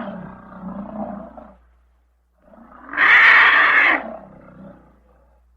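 Monster roar sound effect: the fading end of one roar, a brief pause, then another loud roar about two and a half seconds in that lasts roughly a second and a half and trails away.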